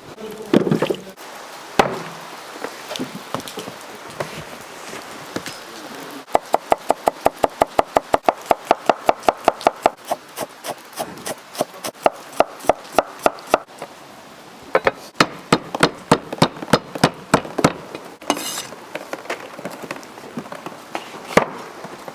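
Kitchen knife chopping rapidly on a wooden cutting board, about five strikes a second for several seconds, with scattered single knocks before and after.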